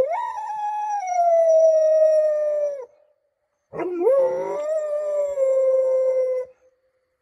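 A dog howling: two long howls with a short pause between them, each rising quickly at the start and then holding, slowly sinking in pitch.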